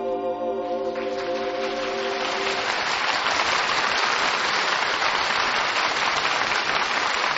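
A studio audience applauding steadily, starting about a second in over the orchestra's held closing chord, which dies away a second or so later.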